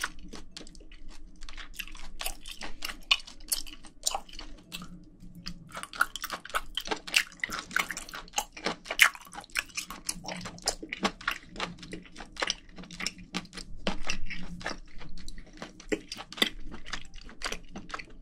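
Close-miked chewing of sliced boiled octopus: wet, sticky mouth clicks and smacks, many a second, in an uneven stream.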